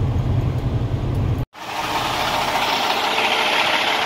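Freshly rebuilt Cummins ISX15 diesel in a semi truck running at highway speed, a steady low rumble. About a second and a half in, this cuts off abruptly to the engine idling under a steady hiss of rain, running smoothly.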